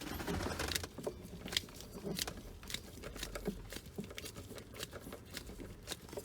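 Irregular light clicks and taps with rustling: hand tools and small screws being worked at the fuel pump access cover.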